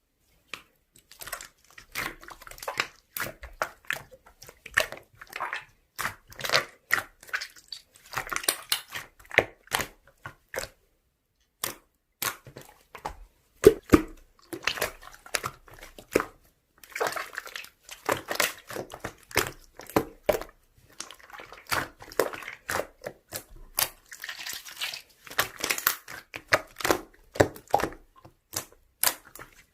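Slime being squeezed and poked by hand, giving irregular crackling clicks and pops several times a second, with a few short pauses.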